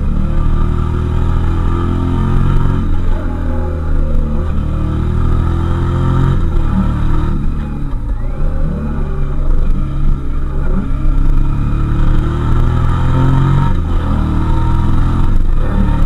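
Suzuki SV650S's 645 cc 90-degree V-twin engine under way, its note falling and climbing again several times as the throttle is rolled off and reopened through a run of bends.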